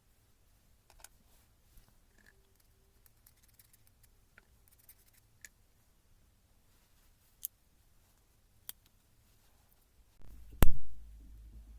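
Sparse light clicks and taps of hand tools and parts being handled, then one loud knock near the end, followed by a low hum.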